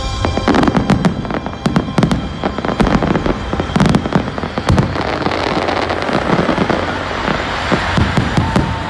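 Fireworks display: a rapid run of shell bursts and bangs, thinning in the middle to a dense crackling hiss with scattered pops, then more bangs near the end.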